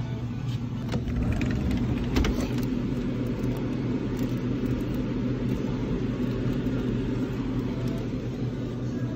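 Steady low mechanical hum of a refrigerated drinks cooler standing open, with a few light knocks as plastic makgeolli bottles are handled on its shelf.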